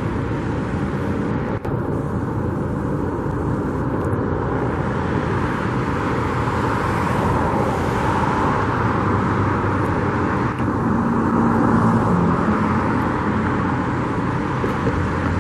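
Steady road traffic noise, cars passing on a nearby road, swelling a little as a vehicle goes by about eleven seconds in.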